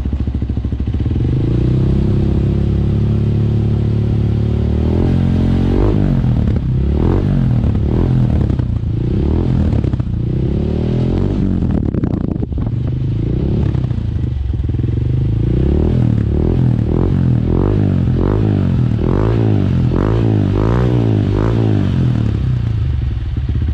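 Honda CRF150L's single-cylinder four-stroke engine, stock, running through a Norifumi Rocket 4 titanium aftermarket exhaust. It is held at raised revs for a few seconds, then blipped again and again, short throttle revs about once a second and quicker later on, and settles back to idle near the end.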